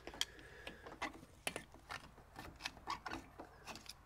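Small screwdriver scraping and picking hardened carbon deposits out of a Citroën 2CV 425 cc cylinder head's port and valve, a string of faint, irregular scratches and clicks of metal on metal and caked carbon.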